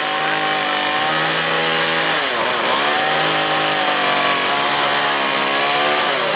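A small engine running at steady high revs, its pitch dipping and climbing back about two and a half seconds in, then dropping again near the end.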